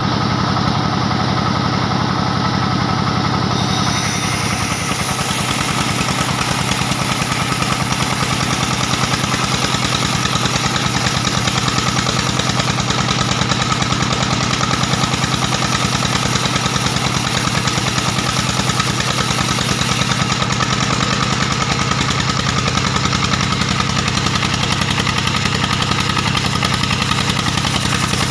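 Diesel engine driving a band sawmill, running steadily with a fast, even beat. About four seconds in, a harsher hiss joins it and holds.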